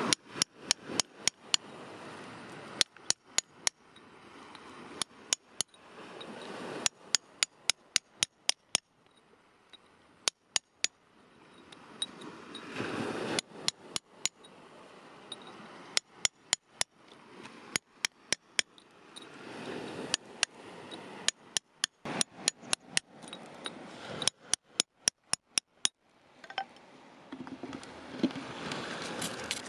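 Small hammer tapping a steel point chisel to chip rock away from quartz crystals: sharp, ringing metallic strikes in quick runs of three to eight blows, with short pauses between runs.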